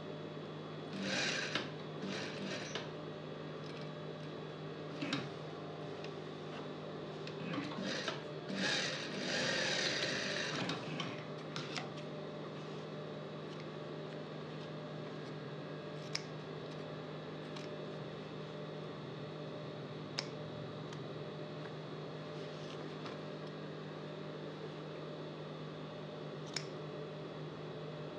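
Industrial sewing machine's motor humming steadily, with short bursts of sewing and fabric handling in the first half. Later come a few single sharp snips of shears trimming threads.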